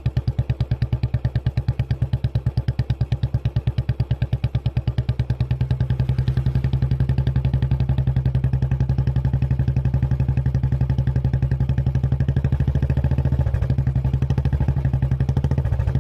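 Royal Enfield Bullet 350's single-cylinder engine running with an even, regular thump, the beats coming closer together and fuller about five seconds in.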